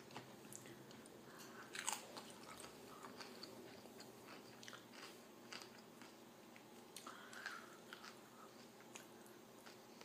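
A person chewing and crunching tortilla chips with taco dip, faint scattered crunches, the loudest about two seconds in and another near the end.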